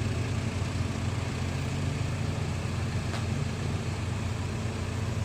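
Heavy diesel engine running steadily at a low, even pitch, with a faint tick about three seconds in.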